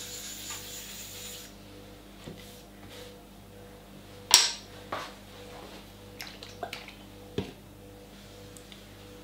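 A wet sponge scrubbing the surface of a sharpening waterstone, which stops about a second and a half in. It is followed by a sharp knock about four seconds in, a softer one a moment later, and a string of light clicks and taps on the stone countertop.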